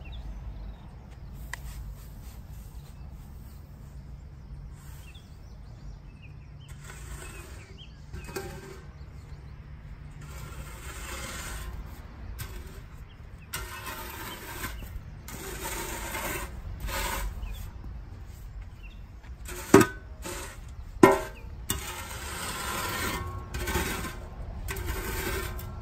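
Large scoop shovel scraping up a compost and sand mix and casting it over lawn grass, in repeated hissing sweeps of one to three seconds. About three-quarters of the way through come two sharp knocks, a little over a second apart.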